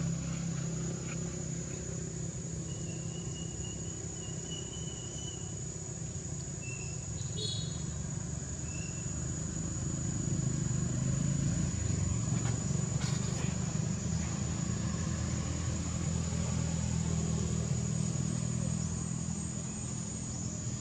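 Steady low rumble of an engine running, growing slightly louder about halfway through, under a constant high-pitched insect drone. A few faint short chirps come a few seconds in.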